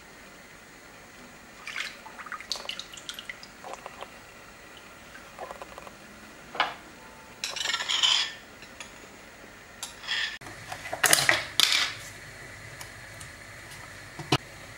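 Liquid ingredients poured into a glass mixing bowl, with clinks of small dishes and a spoon against the bowl. The pouring is heard about halfway through and again, louder, past two-thirds of the way.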